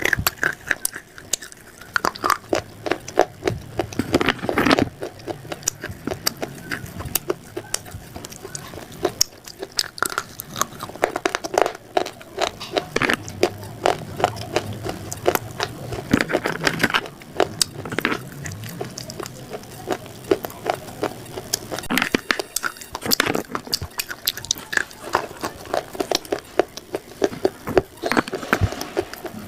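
Dry, crunchy food being bitten and chewed close to the microphone: a dense, irregular run of sharp crackling crunches, with louder clusters of bites every few seconds.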